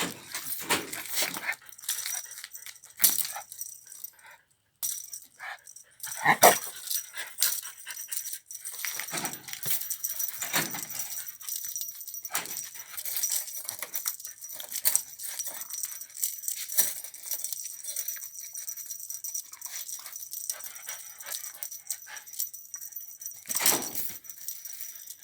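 A dog is excitedly playing with a fishing-rod pet toy, making brief whimpers and sounds among short scuffling and rattling noises.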